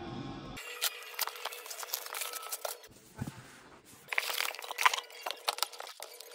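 Crumpled packing paper crinkling and cardboard rustling as boxed action figures are handled and lifted out of a shipping box, an irregular run of crackles and sharp clicks. A faint steady hum sits underneath.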